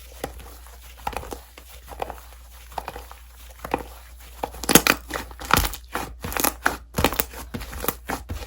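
Slime being squeezed and pressed by hand, making a run of small sticky clicks and pops. They come sparsely at first, then quicker and louder in the second half.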